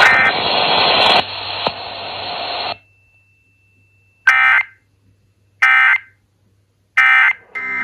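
Loud even hiss of radio static that cuts off about two and a half seconds in, followed by the Emergency Alert System end-of-message: three short screeching bursts of SAME digital data, evenly spaced about 1.3 seconds apart, marking the close of the test.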